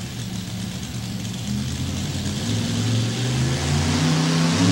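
Mini rod pulling tractor's Rodeck V8 engine running at the starting line, then revving up, growing louder and rising in pitch from about a second and a half in as the tractor gets ready to pull.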